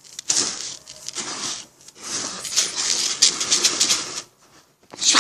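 Dry birdseed being handled, the loose grains rustling and clicking against each other in two spells of about two seconds each, with a short break near the two-second mark.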